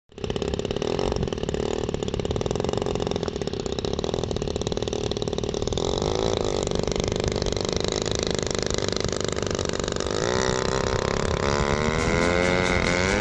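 Gas engine of a giant-scale RC biplane model running steadily on the ground, its pitch wavering around the middle and rising and falling near the end.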